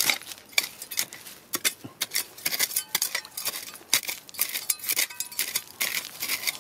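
Small hand hoe chopping and scraping into dry, stony soil: an irregular run of sharp clinks and scrapes of metal on stones and gravel, a few a second.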